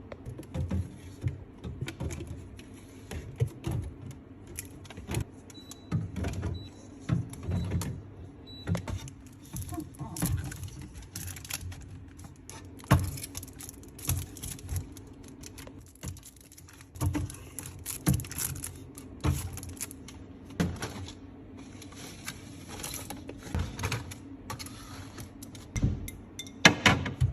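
Irregular clicks, knocks and light rattles of packaged food and drinks being handled and set in place while a fridge is restocked, over a steady low hum.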